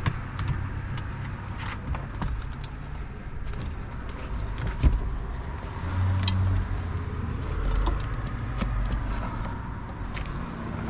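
Scattered small clicks and knocks of hands and tools working in a car's dashboard trim, with one sharper click about five seconds in, over a steady low rumble.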